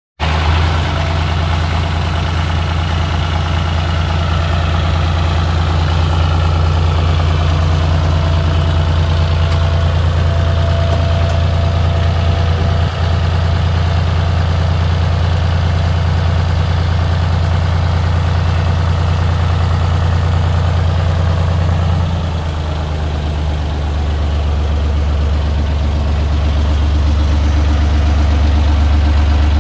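John Deere utility tractor's diesel engine running steadily. About 22 seconds in, the engine note drops slightly and holds at the lower pitch.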